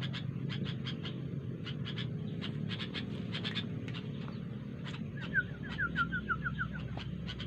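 Small birds chirping in quick, repeated short chips. A little past halfway there is a quick run of about eight short lower notes. A steady low hum runs underneath.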